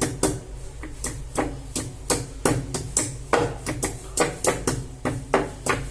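Pestle pounding fresh ginger and powdered cinnamon in a mortar, a steady run of dull strikes at about three a second, crushing the ginger to a paste.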